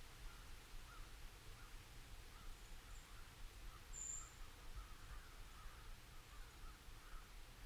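Distant birds calling in woodland: a steady run of short, repeated calls, with a brief high chirp about four seconds in. Faint low wind rumble underneath.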